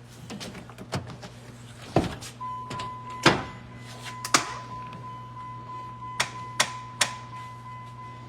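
A series of about seven sharp knocks and clanks, irregularly spaced, over a steady low hum; a steady high tone comes in about two and a half seconds in.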